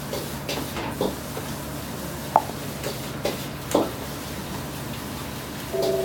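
A stainless steel mixing bowl being tossed by hand: starch-coated century egg pieces shift and knock inside it, with a few light clinks of the metal bowl and one sharp ringing clink about two seconds in. A short steady two-pitch tone sounds near the end, over a steady low hum.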